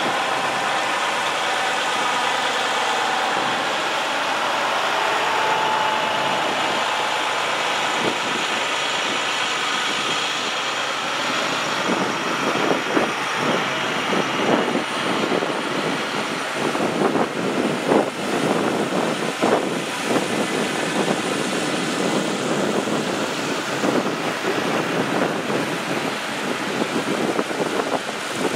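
Tow trucks and pickups driving slowly past in a line, giving a steady noise of engines and tyres. In the second half, frequent short irregular knocks and crackles sit on top of it.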